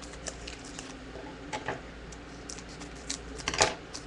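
Trading card packs and their glossy wrappers being handled: a string of small crackles and clicks, with the loudest crinkle about three and a half seconds in.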